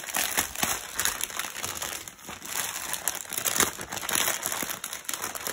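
Clear plastic packaging crinkling irregularly as hands handle and work at a shrink-wrapped tray of diamond painting drills, with a brief lull about two seconds in.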